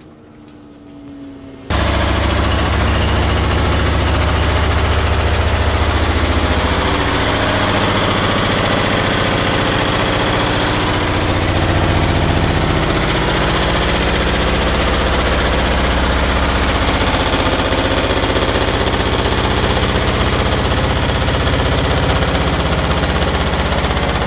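Samsung front-load washer shaking violently on its spin cycle, an insanely loud, rapid clattering over a deep rumble that starts abruptly about two seconds in. The shaking comes from the shipping bolts left in, which lock the drum's suspension.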